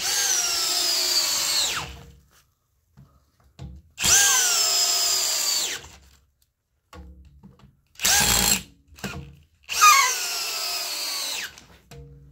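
DeWalt cordless drill driving screws through a steel floor flange into a ceiling beam: three runs of about two seconds each, the motor's whine sagging in pitch under load before it cuts off, and one short burst between the second and third.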